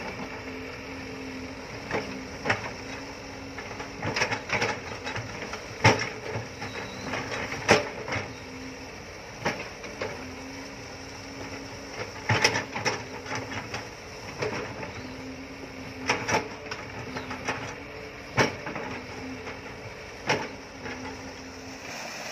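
Hitachi excavator running, its bucket pounding the soil of a freshly built earth levee to settle it: a sharp knock about every one to two seconds over the steady engine and hydraulic hum, whose low note comes and goes as the arm works.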